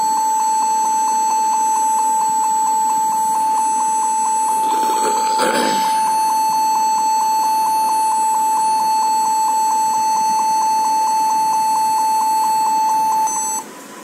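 Dell laptop's built-in beeper sounding a rapid, nearly continuous string of high beeps, about four a second, that cut off suddenly near the end. It is the start-up beep of a faulty keyboard. A brief rustle comes about five seconds in.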